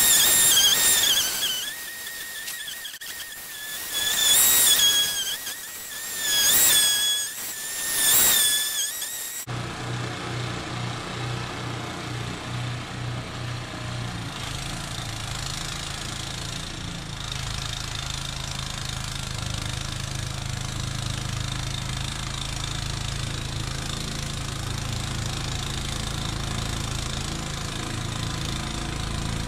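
Snowblower engine played back sped up, a high wavering whine like a dentist's drill that swells and fades several times. About nine and a half seconds in it cuts abruptly to a steady low engine hum.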